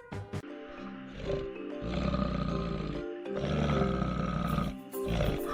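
Two long, low animal calls, each lasting over a second, over background music.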